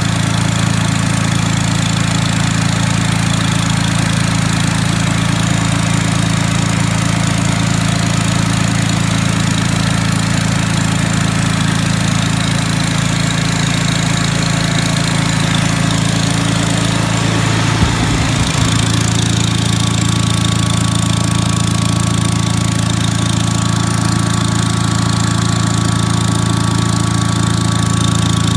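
Onan W2C generator set's engine running steadily on its first run after a rebuild, with a brief change in its sound about two-thirds of the way through.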